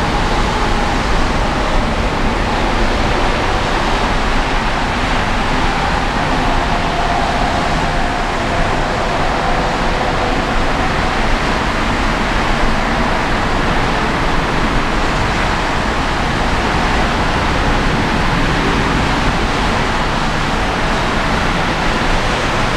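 Airbus A340-300's four jet engines at takeoff thrust: a steady roar with a faint whine that drifts slightly in pitch.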